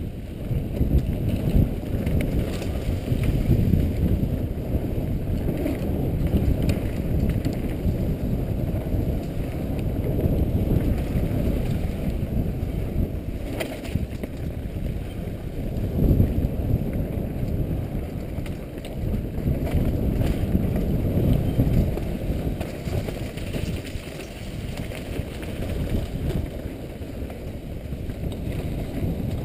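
Wind buffeting a helmet-mounted microphone during a fast mountain-bike descent on a dirt trail, over the rumble and rattle of the bike on the bumps. It surges unevenly, with a couple of sharper knocks partway through.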